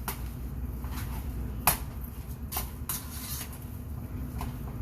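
Cookware and utensils being handled on a stovetop: a few sharp, separate clinks and knocks, the clearest about a second and a half in, over a steady low hum.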